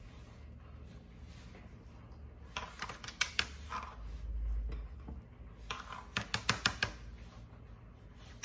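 Light clicks and taps of a metal spoon against kitchen dishes: a few soft taps about three seconds in, then a quick run of about seven sharp ticks near six seconds in.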